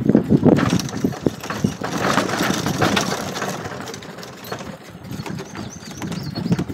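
Small open-canopied cart or utility vehicle driving over a rough dirt and grass trail: knocking and rattling over the bumps in the first second or so, then a steadier hiss of travel that eases off.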